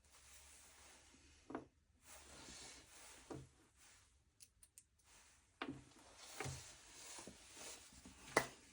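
Small tools and metal engine parts being handled: five or so light knocks and clicks over faint rustling, the sharpest near the end.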